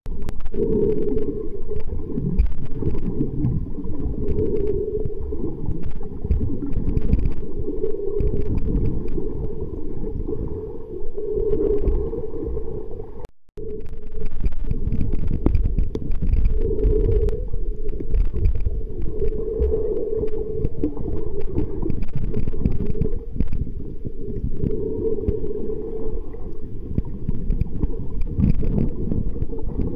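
Muffled underwater rumble and sloshing of water, heard through a camera held underwater, with almost nothing above a low, dull band. It cuts out for a moment about thirteen seconds in.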